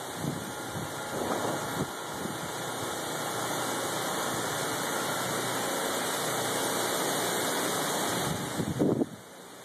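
Gusty wind blowing through trees, with wind buffeting the phone's microphone. The gust builds steadily for several seconds, then drops off suddenly near the end.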